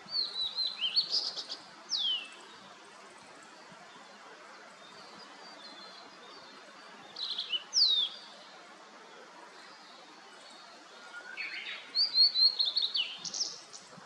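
Male blue-and-white flycatcher singing: three phrases of high whistled notes, each with quick falling slurs, one near the start, one midway and a longer one near the end.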